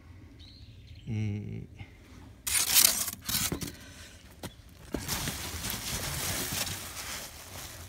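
Bubble-wrap packing rustling and crinkling as it is handled and pushed aside by hand, starting with a loud crinkle about two and a half seconds in, then a few sharp clicks and steady rustling near the end. A brief low vocal sound comes about a second in.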